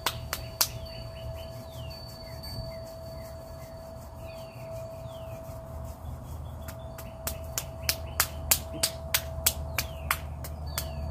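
Hand-on-hand tapping: sharp slaps of palm and fingers on the back of the other hand, a few near the start, then a quicker run of slaps from about seven seconds in, over a steady tone and short chirps.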